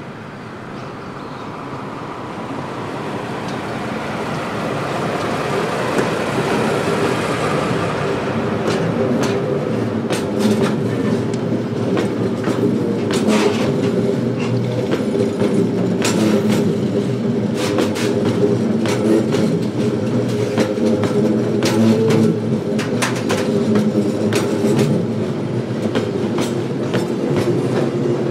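Freight train on the Seino Railway: a DE10 diesel-hydraulic locomotive approaching and growing louder, then loaded limestone hopper wagons rolling slowly past, their wheels clicking over the rail joints many times above a steady rumble.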